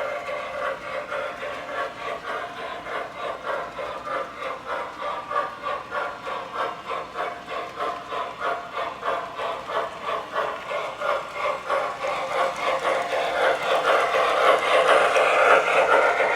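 O-gauge model train, a 4-6-6-4 Challenger locomotive pulling heavyweight passenger cars, running on track with a steady rhythmic beat of about two a second and a hiss. It gets louder over the last few seconds.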